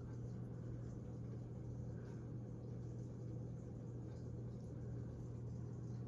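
A steady low hum under a faint hiss: quiet background room tone with no distinct events.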